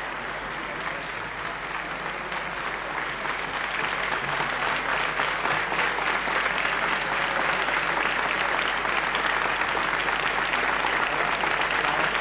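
Concert hall applause from the audience and the choir, a dense clapping that grows louder over the first few seconds and then holds steady.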